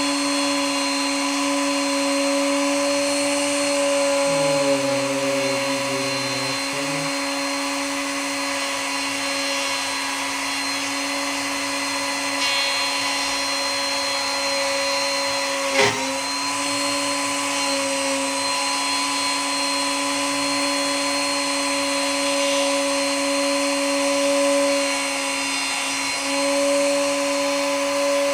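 Power tool motor running steadily at high speed, cutting wood to work the recess down, with one sharp knock about sixteen seconds in.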